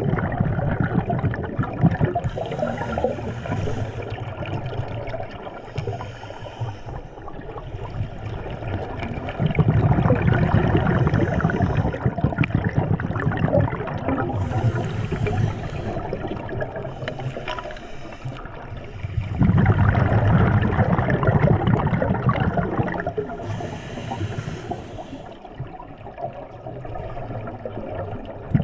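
Scuba diver breathing through a regulator underwater. Exhaled bubbles give a loud, low bubbling rumble in three bouts about ten seconds apart, and the regulator hisses on the breaths in between.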